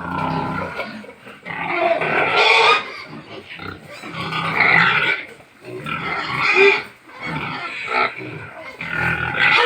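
Pigs grunting and squealing in loud, overlapping calls of a second or so each.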